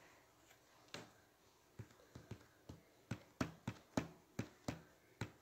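A series of about a dozen light, sharp taps. They start about a second in and come irregularly, speeding up to roughly three a second.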